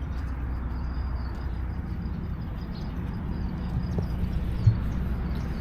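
Steady low rumble of outdoor background noise, with faint high chirps and a single short thump about two-thirds of the way in.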